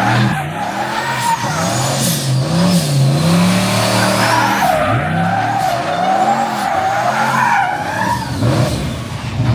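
Turbocharged Chevrolet Caprice revving hard again and again, its engine note swinging up and down, while its tyres squeal steadily in a burnout.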